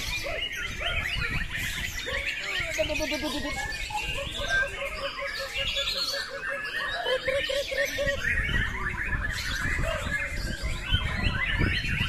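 Many caged songbirds singing at once, white-rumped shamas (murai batu) among them: dense, overlapping rapid chirps, trills and whistles with no pause.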